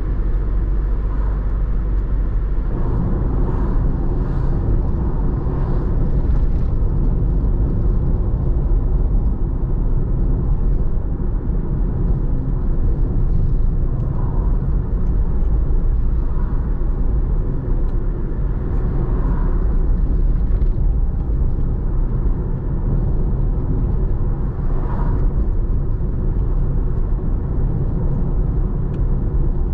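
Steady low rumble of a car driving along a road, engine and tyre noise together, with a few brief swells in the hiss along the way.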